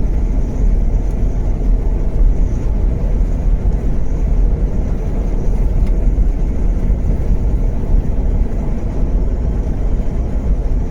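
Steady low road and engine rumble of a car on the move, heard from inside the cabin.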